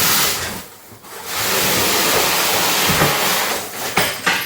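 Cardboard box and its packaging scraping and rustling on the floor as the box is tipped over and the contents are worked out, in two long stretches, with a couple of sharp knocks near the end.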